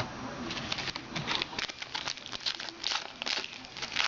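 Crinkling of a trading-card pack's wrapper being handled and torn open, with cards rustling, in quick irregular crackles.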